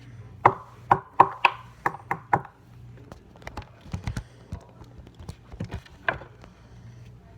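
A knife chopping and knocking on a hard surface while cutting into a bracelet bead. A quick run of about seven sharp knocks is followed by scattered lighter taps and one more knock near the end.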